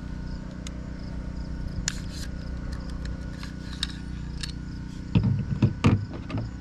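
Scattered light metallic clicks of a Smith & Wesson M&P 15 Sport II AR-15 rifle being taken apart, its upper and lower receivers separated and the bolt carrier group drawn out, with a few louder knocks near the end, over a steady low hum.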